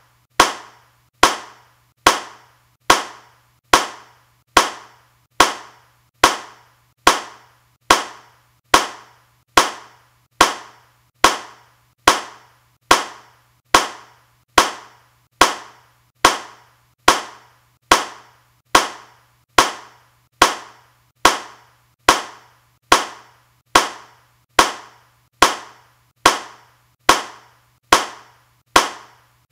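Single handclaps repeated at an even pace, a little more than one a second, each one sharp and dying away quickly.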